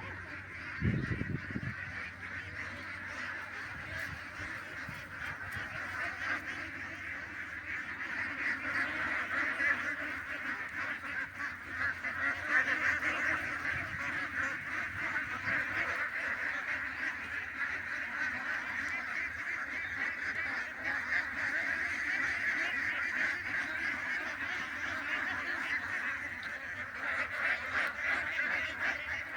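A flock of birds calling all at once in a dense, continuous chorus of overlapping calls, with a short low bump about a second in.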